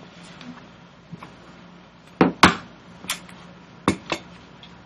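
Desk stapler clacking as it is pressed down to drive a staple through construction paper: a sharp double click about two seconds in is the loudest, followed by a few lighter clicks as the stapler is handled.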